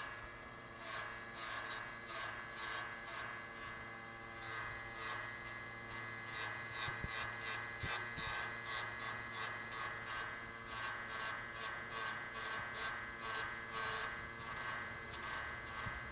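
Motor-driven deburring wheel running with a steady whine while a cast silver ring is pressed against it and turned. The rubbing rasps in even strokes about three times a second.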